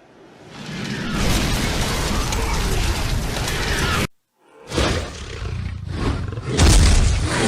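Cinematic action sound effects: a deep roaring rumble swells up over about a second, holds, and cuts off abruptly about four seconds in; after a brief silence a second rumbling effect starts and surges louder near the end.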